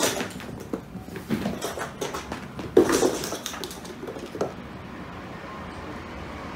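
A cat's paws pattering and thudding on a wooden floor as it dashes across the room, with irregular sharper knocks, the loudest about three seconds in. The patter dies away after about four and a half seconds.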